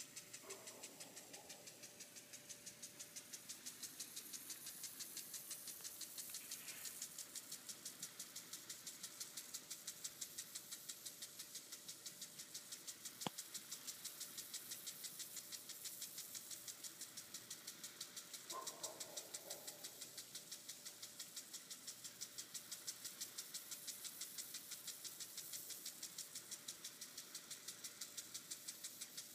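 Impact lawn sprinkler on a garden hose ticking in a steady, even rhythm as it turns, over a faint hiss of spray. A single sharp click comes about halfway through.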